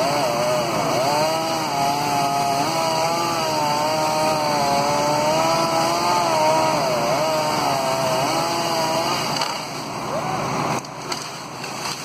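Chainsaw cutting into a tree trunk, its engine pitch wavering up and down as the chain bites and eases in the wood. The saw stops about nine seconds in.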